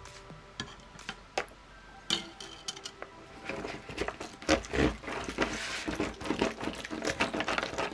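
Wooden stirring stick working lumpy, stiffening slime in an aluminium foil tray, with wet squelching, scraping and crinkling of the foil pan. The activator has just gone in. A few scattered clicks at first, then busier, quick crackling strokes from about halfway.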